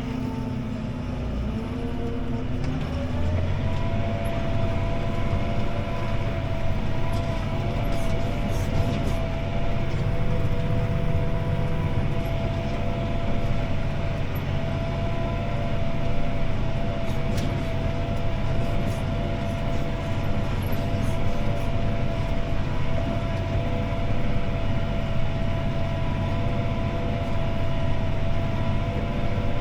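CLAAS ARION 650 tractor's six-cylinder diesel running under load as heard in the cab while it pulls a disc harrow, with a steady low drone. About three seconds in the engine and drivetrain pick up speed, with a whine rising in pitch, then it holds steady.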